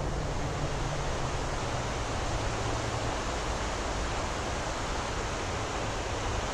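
Steady rushing of a rain-swollen river flowing past, an even hiss without breaks.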